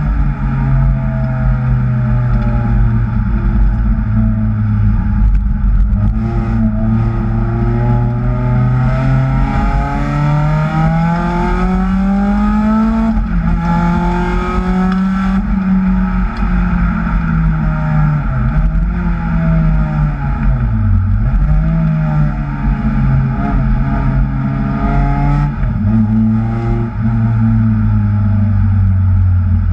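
Kraftwerks-supercharged Acura TSX engine running hard on track. The revs climb steadily from about eight seconds in, hold, then fall with two sharp drops and recoveries around the twenty-second mark before settling to a lower, steadier note.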